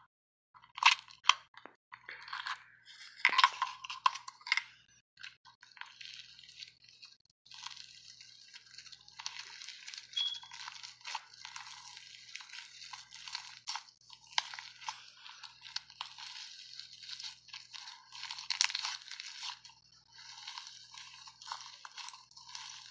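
Slime being squeezed, stretched and folded by hand, making a dense crackling of small pops and clicks. A few louder sharp pops come in the first few seconds.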